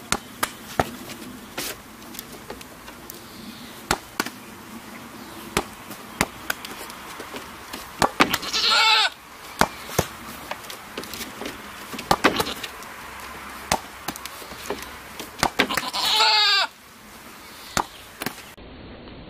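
A goat butting a ball with its head and horns, giving irregular sharp knocks every second or so. The goat bleats twice, once about halfway through and once near the end, and these long bleats are the loudest sounds.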